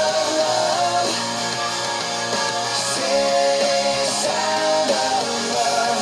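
Guitar music: strummed guitar chords with a held melody line over them, changing notes every second or so.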